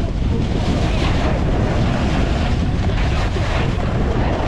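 Steady, loud wind noise rushing over the microphone of a camera carried down a ski slope on a snowboard run.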